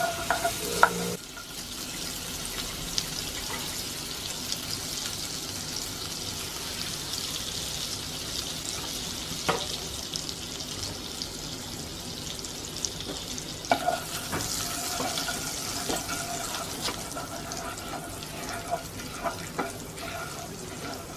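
Minced garlic sizzling and crackling in melted butter in a frying pan. A wooden spatula scrapes and stirs it in the first second, and again from about two-thirds of the way through.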